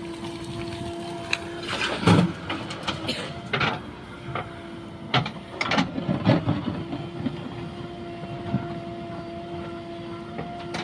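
Heavy earthmoving machinery running with a steady whine, broken by a series of clanks and knocks about two to six seconds in.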